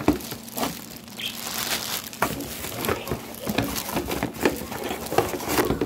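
Plastic packaging crinkling and a cardboard box rustling as a wrapped vacuum cleaner part is worked loose and pulled out, in a run of irregular crackles and light knocks.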